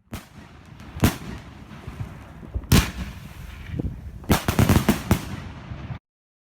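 50 mm fireworks battery firing: loud single bangs about a second and nearly three seconds in, then a fast volley of shots around four and a half to five seconds, with a noisy hiss between them. The sound cuts off abruptly about six seconds in.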